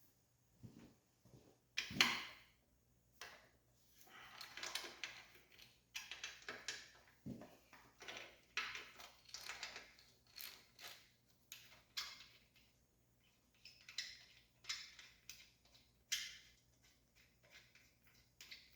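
Hand-tool and metal-part handling noise during motorcycle-type disassembly: irregular clicks, knocks and short rasping scrapes as bolts and fittings are worked loose and handled.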